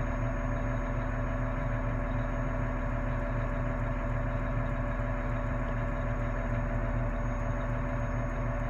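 Heavy-equipment engine idling at a steady, unchanging pitch, heard from inside its cab.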